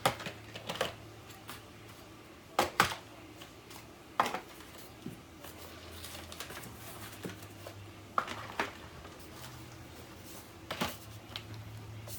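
Hard plastic vacuum parts and packaging being handled: scattered clicks and knocks a second or more apart, over a faint low steady hum.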